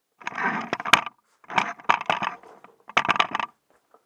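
Small hard objects clinking and clattering as they are handled, in three short bursts of rapid clicks.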